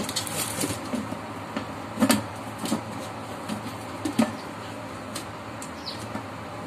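Plastic blender lid being pressed and fitted onto the clear plastic jar: a few sharp plastic knocks and clicks, the loudest about two and four seconds in, with crinkling of plastic wrapping between them.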